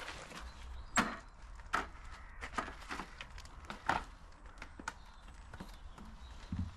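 Footsteps climbing a metal folding step into a static caravan: a series of sharp clicks and knocks, ending in a dull thump near the end as a foot lands on the hollow caravan floor.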